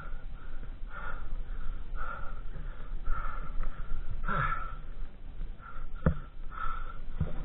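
A man panting hard, about one breath a second, with a louder gasp or grunt about halfway through: he is out of breath from heaving a heavy dirt bike on soft sand.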